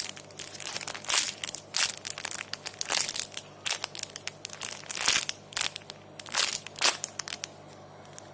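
Plastic packaging around a squishy crinkling as it is handled, in irregular crackly bursts that die down near the end.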